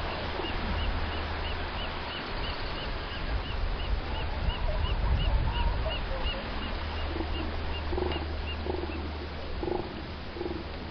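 Northern elephant seals giving low, guttural calls in a series of pulses as two of them spar in the water, over a steady wash of surf noise.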